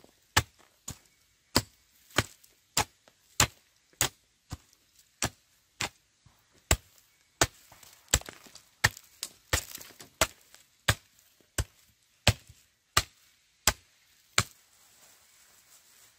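Steady, even chopping: a blade striking wood about one and a half times a second, some twenty strokes, stopping near the end.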